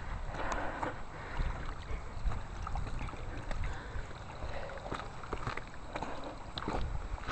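Wind noise on the camera's microphone, with scattered scuffs and clicks of footsteps on rocky ground.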